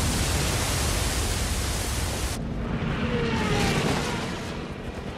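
War-film battle sound: a loud rushing roar that cuts off abruptly about two and a half seconds in, followed by a propeller aircraft passing with a few short falling whines.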